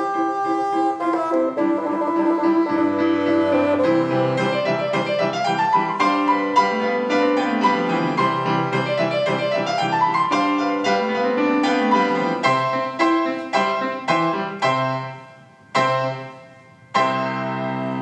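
Grand piano playing the orchestral part of a classical concerto on its own, with running scales rising and falling. It then plays a string of detached chords, the last ones set apart by short pauses, closing the movement.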